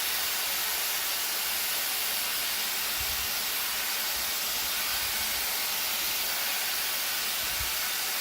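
Wind Magic Styler hot air styler blowing steadily through its auto-wrap curler attachment, an even high rush of air as the airflow draws the hair around the barrel. A few soft low bumps about three seconds in and near the end.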